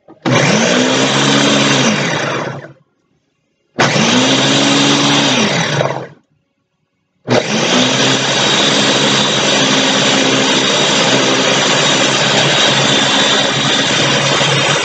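Countertop blender blending spinach, fruit and water into a green smoothie. It runs in two short pulses of about two seconds each, the motor pitch rising then falling each time, then from about seven seconds in runs steadily.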